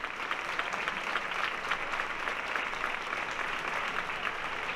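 Crowd applauding, a steady dense patter of many hands clapping.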